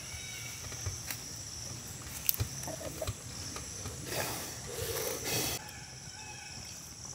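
Outdoor rural background with a steady high insect-like drone, soft clicks and rustles of hands mixing rice and fish on a banana leaf, and a brief low animal call about five seconds in.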